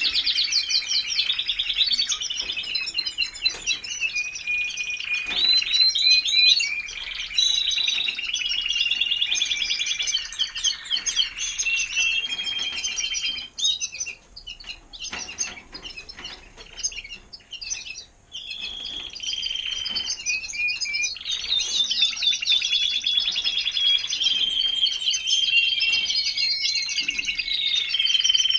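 Timbrado español canaries singing: long runs of rapid trills and rolls, one phrase running into the next. About halfway through, the song stops for a few seconds, leaving only short chirps, then it starts up again.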